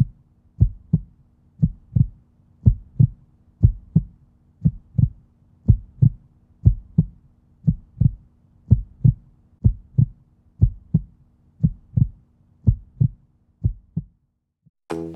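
Heartbeat sound effect: steady lub-dub double thumps, about one beat a second, over a faint steady hum. It stops near the end, and music starts just after.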